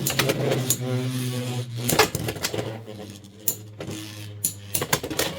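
Beyblade X spinning tops whirring in a plastic stadium, a steady whir broken by sharp clacks as they collide, with the clacking coming thicker near the end.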